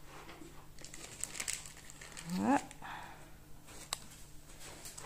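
Crinkling and rustling of Pokémon card packaging being handled. A short rising vocal sound comes about halfway through, and a faint click follows a little later.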